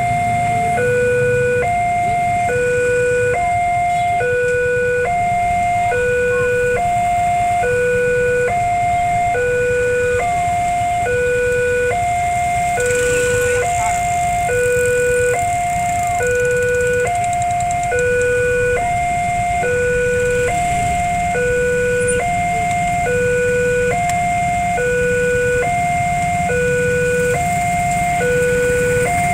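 Railway level-crossing warning alarm, an electronic two-tone signal alternating a high and a low tone, about one high-low pair every two seconds, sounding steadily. It signals that a train is approaching and the barrier is closed. A low steady rumble of idling traffic lies underneath.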